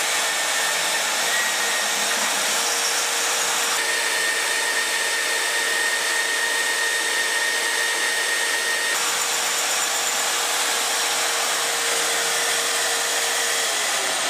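Magnetic drill's motor running steadily under load as its bit cuts a hole through steel plate, a loud, even whine. A second, higher whine joins in from about four to nine seconds in.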